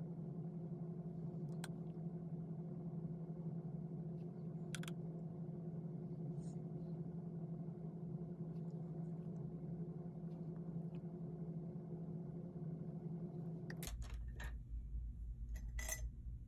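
Steady low hum of room tone with a couple of faint clicks. About fourteen seconds in, the hum changes to a deeper drone and a few light clicks follow.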